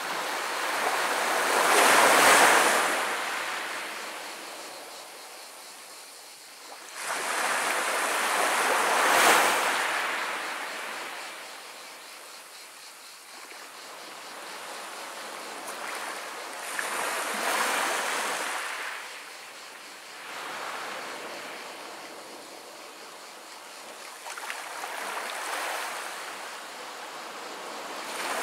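Small Mediterranean waves breaking and washing up a beach of sand and pebbles, the sea rolling over the pebbles. Each wave swells into a hiss and then fades, one every few seconds; the first two, about two and nine seconds in, are the loudest.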